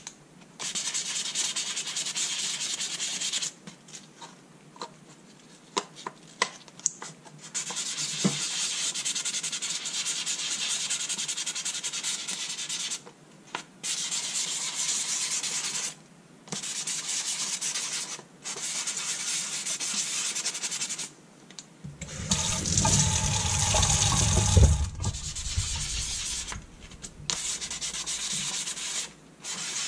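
Hand sanding the weathered plastic face of a small solar-lamp panel with fine-grit abrasive, wet over a sink. A steady scratchy hiss comes in runs of a few seconds, broken by short pauses, with a louder, deeper rushing stretch about two-thirds of the way through.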